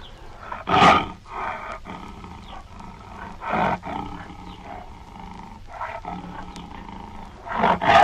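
Tiger roaring: three loud, short roars, about a second in, at about three and a half seconds and near the end, with quieter calling between them.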